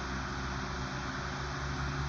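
Vintage Lasko 16-inch table fan running steadily: an even rush of moving air over a low motor hum.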